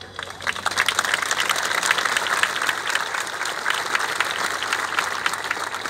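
Large crowd applauding, a dense patter of many hands clapping that swells up about half a second in, holds, and eases off slightly near the end.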